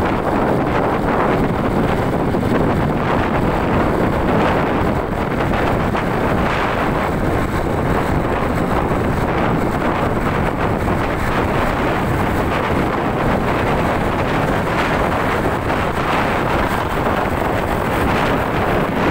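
Steady wind rush on the microphone mixed with road and traffic noise from a moving vehicle driving through light city traffic.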